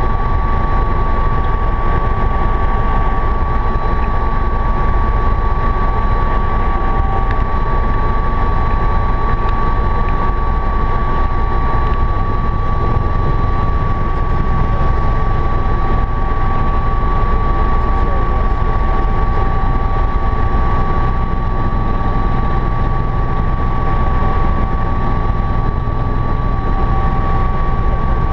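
Helicopter cabin noise in cruise: the engine and rotor running steadily, a constant low rumble with a steady high whine over it.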